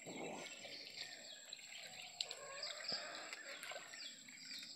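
Faint outdoor ambience: light water splashing as hands pull a fine current net through shallow water, with birds chirping and a few small clicks.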